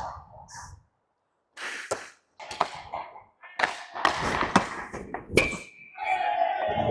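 Ice hockey play heard through a goalie's body mic: a string of sharp knocks and thuds from sticks, puck and goalie pads, with skate scrapes on the ice, then a steadier rushing sound near the end.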